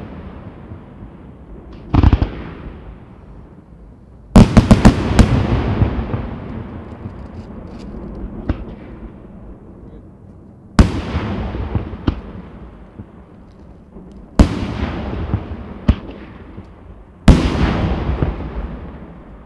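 Senatore Fireworks aerial shells bursting in a fireworks display: sharp bangs every few seconds, with a quick cluster of several about four seconds in. Each bang trails off in a rolling echo.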